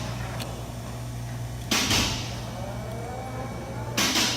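Two short rasping noises, about two seconds apart, from tool work on a snap ring deep inside an A/C compressor's clutch housing, over a steady low hum.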